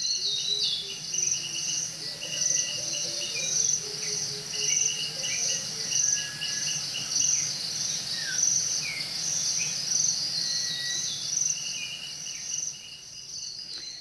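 Recorded forest soundscape: a dense chorus of insects chirring in high pulses about twice a second, over a faster chittering trill, with scattered short bird whistles sliding down in pitch. It cuts off near the end.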